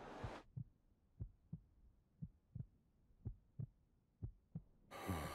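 Slow heartbeat sound effect: a low double thump (lub-dub) about once a second. A breath comes in near the end.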